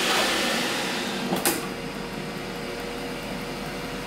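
Philips XXL air fryer basket drawer pushed shut, latching with a single sharp clack about a second and a half in, over a steady whirring hum.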